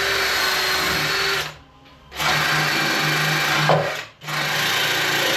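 Power tool spinning a wire wheel, scouring rust off steel bodywork. It runs loud and steady, stops about a second and a half in, starts again, and cuts out once more for a moment near the end.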